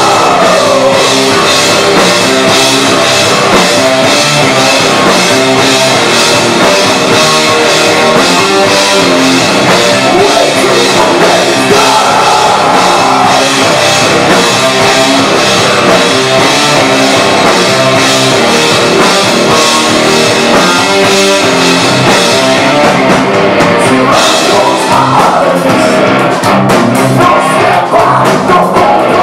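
Rock band playing live at full volume: electric guitar, bass guitar and drum kit, with a man singing over it.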